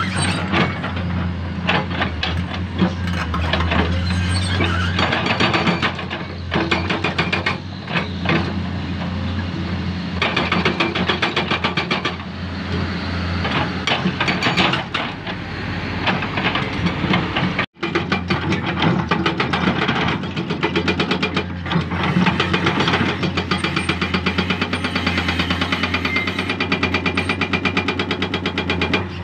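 A hydraulic excavator's diesel engine runs steadily under load while its bucket knocks and scrapes against limestone rock in irregular clanks. A sudden, very brief gap a little past halfway breaks the sound.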